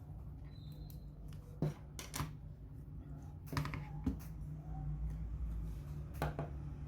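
A handful of sharp, short clicks and taps of small tools and parts being handled during a smartphone repair, over a steady low hum.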